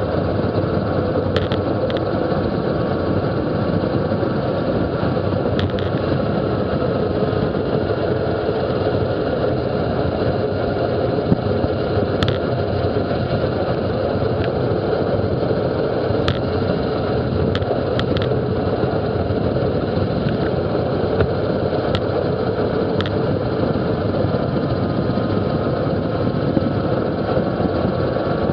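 Steady wind rush over a bicycle-mounted camera microphone as a road bike coasts downhill at about 35–42 mph, with a dozen or so sharp ticks scattered through it.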